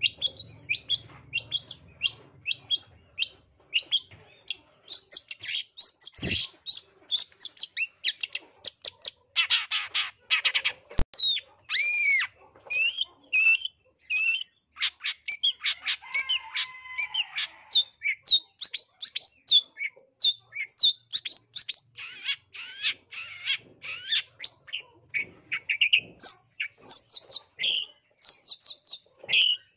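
Long-tailed shrike singing nonstop: a rapid, varied run of high chirps, whistles and trills, with harsh rasping notes about a third of the way in and a lower chatter in the middle. The song is packed with mimicked phrases of other birds.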